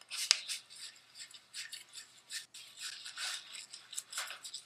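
Hands scrubbing a small dog's wet coat in a stainless-steel sink: irregular scratchy rubbing strokes, with a sharp click about a third of a second in.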